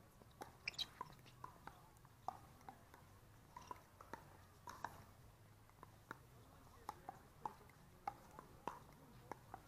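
Pickleball paddles striking a hard plastic ball, with the ball bouncing on the court: a string of sharp, hollow pocks at irregular intervals, some quick pairs, over a faint low hum.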